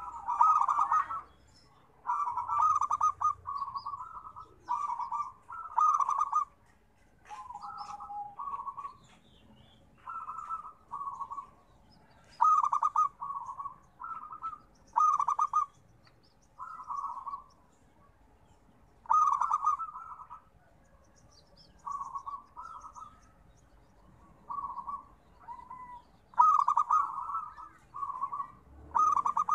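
Zebra dove (perkutut) cooing: a string of short, rapidly rattled coo phrases, one every second or two, with brief pauses between.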